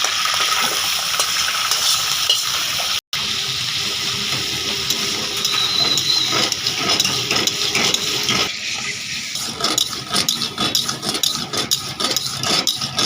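Food frying in hot oil in a pan: a loud, steady sizzle with spattering crackles, broken by a brief cut about three seconds in.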